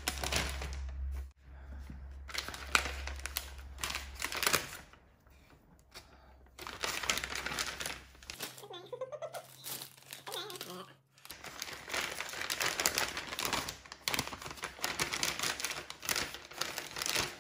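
Thin clear plastic food bag crinkling and rustling in the hands, on and off, as slabs of cured pork-belly bacon are slid into it and it is handled.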